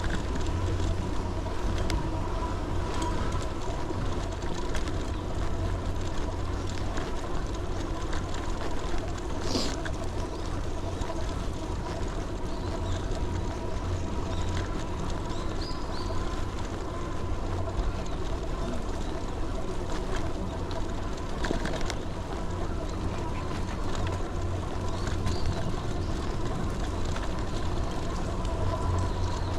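Wind rushing over the microphone and tyre noise on a wet road during a ride, with a steady high whine underneath.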